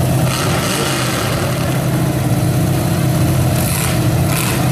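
Demolition derby cars' engines idling loudly and steadily, a low even drone. Two short hissing noises come near the end.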